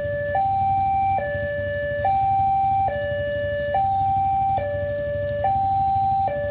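Railway level-crossing warning alarm from the signal post's loudspeaker: an electronic two-tone signal alternating evenly between a low and a higher note, each held just under a second, sounding while the barrier is down to warn of an approaching train.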